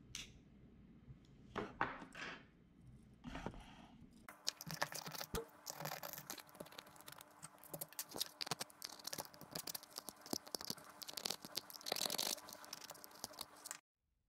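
Thin plastic food container being handled and rubbed by hand: a few scattered clicks, then from about four seconds in a dense run of crackling and scraping as the edges of its freshly drilled holes are cleaned up. It cuts off suddenly near the end.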